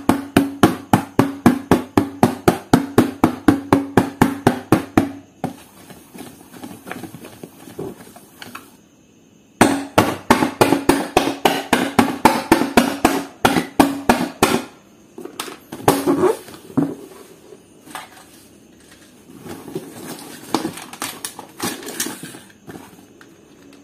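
A pencil jabbing holes through a paper sheet: rapid, evenly spaced tapping knocks, about six a second, in two runs of about five seconds each, then scattered softer taps and paper crackling.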